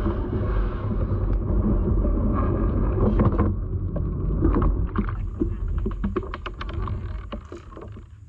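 Gear being handled on a plastic fishing kayak: a low rumbling of bumps through the hull with scattered knocks and clatter, loudest in the first few seconds and fading to lighter clicks and taps.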